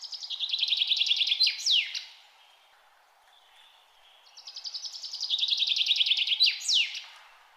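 A songbird singing the same song twice, a few seconds apart: a fast trill of repeated notes that steps down in pitch, ending each time in two quick downward slurs.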